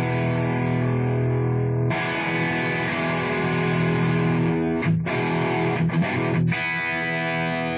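Distorted electric guitar, an Epiphone Les Paul Prophecy played through a 2004 Marshall 1959HW Super Lead head and 4x12 cabinet, playing held rock chords that change about two seconds in, with a few short, sharp accents in the second half.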